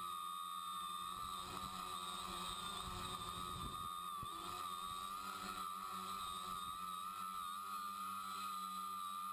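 Tricopter's electric motors and propellers whining steadily, heard close from a camera mounted on the craft, the pitch wavering slightly as the throttle changes.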